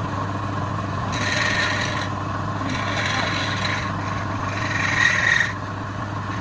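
Wood being worked on a turning lathe: three rubbing passes of a second or so each against the spinning workpiece, over the steady hum of the lathe motor.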